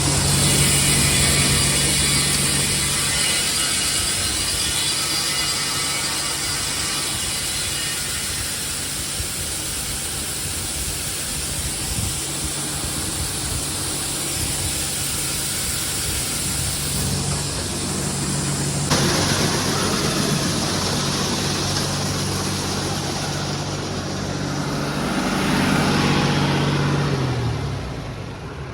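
Engine running steadily while a grain truck is dumped into an auger, with a hiss of shelled corn pouring, strongest in the first third. Near the end the engine's pitch falls and the sound dies down as it slows.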